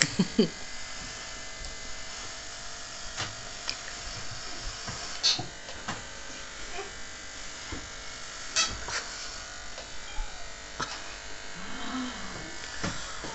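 Corded electric hair clippers running with a steady buzz while shaving hair off a head. A few short clicks come at intervals through it.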